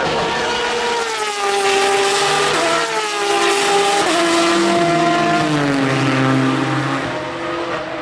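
GTE race cars, including a Porsche 911 RSR with its flat-six, braking and downshifting into a corner. The engine note falls in a series of steps, jumping back up briefly at each gear change.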